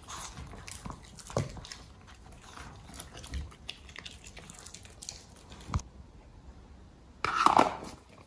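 Small poodle-type dogs eating from ceramic bowls: scattered chewing and crunching with small clicks against the bowls. Near the end, a louder short pitched sound.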